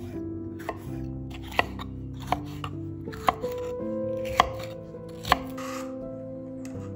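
Chef's knife slicing a red bell pepper on a wooden cutting board: separate, sharp chops of the blade hitting the board at an uneven pace, over background music.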